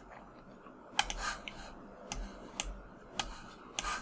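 Irregular clicks of a computer mouse and keyboard being worked: about seven short, sharp clicks scattered over a few seconds.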